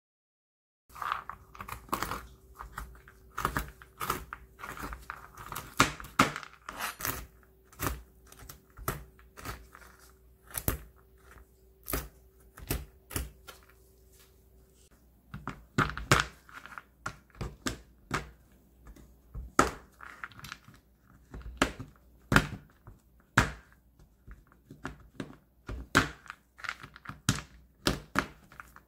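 Kitchen knife chopping almonds and walnuts, then chunks of dark chocolate, on a plastic cutting board: sharp, irregular chops a few times a second.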